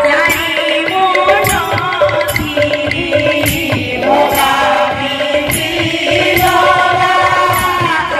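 Devotional kirtan music: a chanted, sung melody over held tones, with percussion strokes through it.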